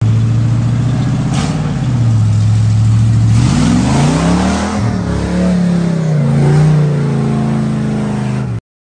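Ford pickup mud truck's engine revving as it drives through mud and water. The engine pitch dips, climbs sharply about four seconds in, then holds higher, and the sound cuts off abruptly near the end.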